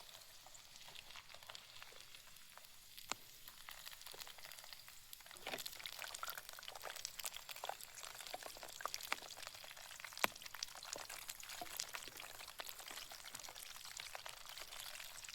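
Pakoras frying in hot oil: a faint steady sizzle with many small crackles and pops, which get busier about five seconds in.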